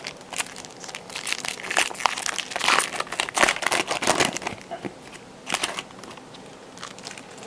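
Foil wrapper of a Topps Chrome trading-card pack crinkling as it is torn open and pulled off the cards. A dense run of crackles lasts about four seconds, with a few more after a short pause.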